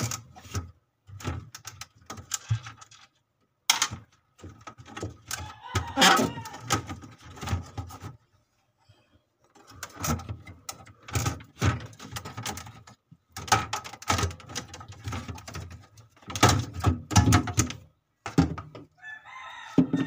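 Plastic freezer shelf in a fridge being wrenched and rattled by hand, in bouts of clicking, knocking and scraping of plastic, with a short pause about halfway through. A rooster crows near the end.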